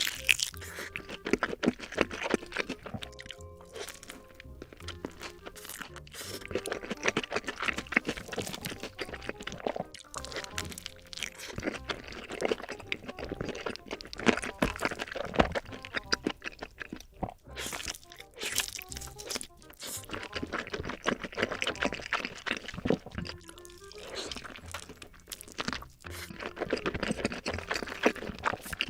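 Close-up eating sounds: sausages being bitten and chewed with a steady run of crunching and snapping, over background music.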